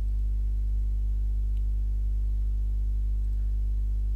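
Steady low electrical hum, a constant buzz with an even stack of overtones that does not change at all.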